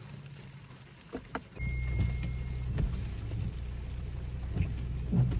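Car engine starting about one and a half seconds in, after two sharp clicks, then idling with a steady low hum. A short high electronic chime sounds as it catches.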